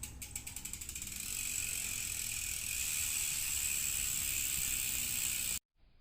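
Rear freehub ratchet of a mountain bike's Strummer MT039 hub buzzing as the wheel freewheels: single clicks speed up over the first second and a half into a steady, loud high-pitched buzz, then cut off suddenly near the end.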